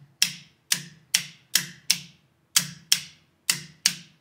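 Electrical contactor clacking in and out as its coil is switched on and off with AC: about nine sharp clicks at uneven intervals, showing that the contactor works.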